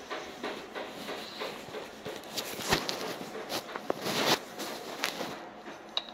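Hand nut driver undoing screws on a plastic car heater/AC housing: a run of irregular clicks and knocks of the metal tool against the plastic case, with a scraping clatter about four seconds in.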